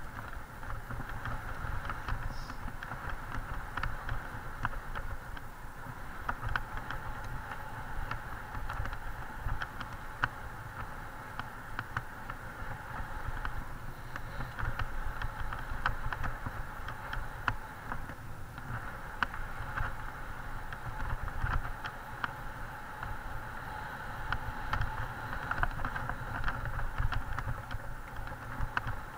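Mountain bike riding fast over a dirt forest trail, heard through an action camera: steady tyre and wind rumble with frequent clicks and rattles as the bike goes over bumps.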